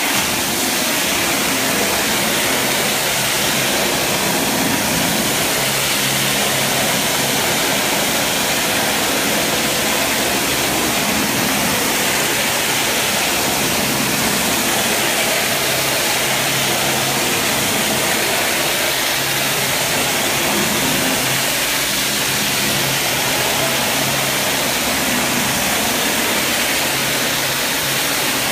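Rotary hard-surface tile cleaning tool (spinner) running on a tile floor: a loud, steady rushing hiss of spray and vacuum suction, with a low machine hum underneath.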